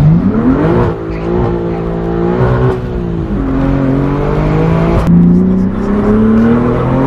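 BMW M4 G82's twin-turbo inline-six through a full titanium valved cat-back exhaust, accelerating hard. Its pitch climbs, drops at an upshift about three seconds in, then climbs again, with a brief sharp crack about five seconds in.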